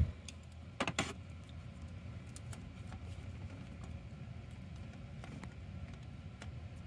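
Two sharp clicks close together about a second in, then a faint steady low hum with scattered light ticks.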